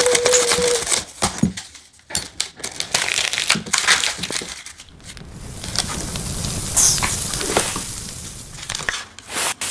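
Cardboard being handled on a table: a cardboard tube rolled over a flat cardboard sheet, the sheet folded, and a flat cardboard piece slid and scraped across the table, with irregular crinkling and crackling.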